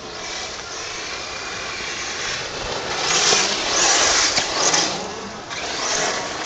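Electric RC car on a 4S LiPo battery driving fast on loose gravel, its motor whine and the tyres on the gravel growing loudest as it passes close, about three to five seconds in.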